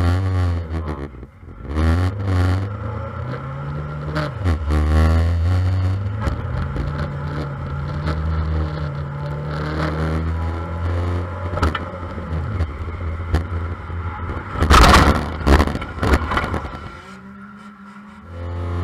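On-board sound of a micro banger race car: its engine revving up and down, with metal scraping and clattering from contact with other cars. A cluster of loud crashing bangs comes about fifteen seconds in, after which the sound drops away.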